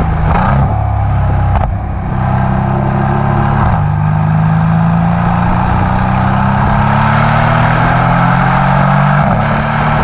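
Exhaust of a Mercedes-AMG C63 S's 4.0-litre twin-turbo V8, heard right at the quad tailpipes, under acceleration in Sport Plus mode. The note shifts a couple of times in the first few seconds with a short crack about two seconds in, then climbs steadily in pitch for about five seconds before stepping again near the end.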